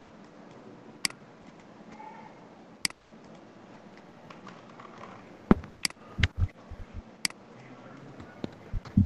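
Sharp clicks of a computer mouse and keyboard, single ones a couple of seconds apart, then several in quick succession past the middle, some with a dull thud, over faint room hiss.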